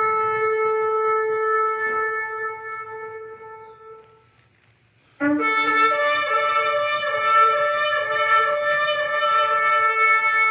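A long shofar blast on one held note, fading away over about four seconds. After a moment of near silence, music with several notes held together starts abruptly about five seconds in and keeps going.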